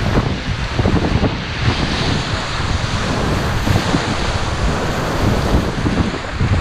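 Whitewater rapids rushing and splashing around an inflatable kayak as it rides through standing waves, with heavy wind buffeting on the microphone.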